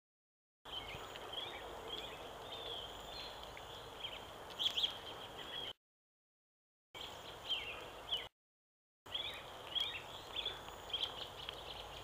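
Several small birds chirping and calling in the trees, many short high notes over a steady background hiss. The sound cuts out abruptly to dead silence three times, at the very start, about halfway and again about two-thirds through.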